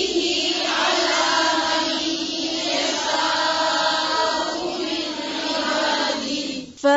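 A woman reciting the Quran in Arabic in a melodic chant, drawing out long held notes in a few unbroken phrases.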